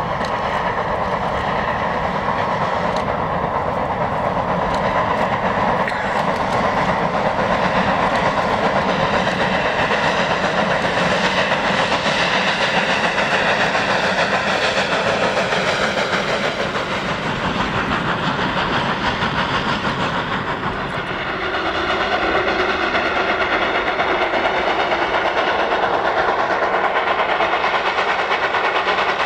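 NGG16 narrow-gauge Garratt steam locomotive working a train under steam, with the wagons rolling on the rails. The sound is loud and continuous, dipping briefly about two-thirds of the way through.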